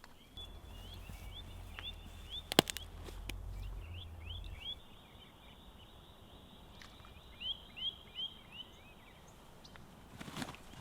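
Birds calling: short rising chirps, high in pitch, repeated in loose runs. A sharp click about two and a half seconds in, and a low rumble over the first few seconds.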